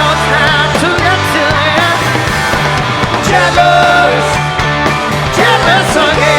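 Rock music soundtrack: an instrumental stretch of a guitar-driven rock song between sung lines, with bending melodic lines over a steady beat.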